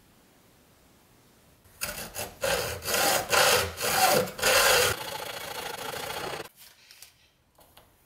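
Hacksaw cutting a sheet of aluminum: a run of back-and-forth strokes, about two a second, starting about two seconds in and stopping after about four and a half seconds.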